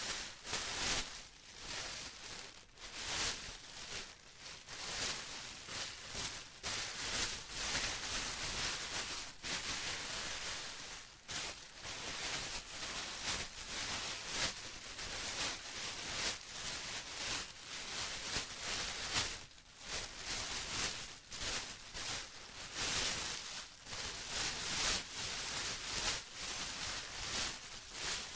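Plastic being crinkled and rustled in continuous irregular surges, a crackly hiss strongest in the highs.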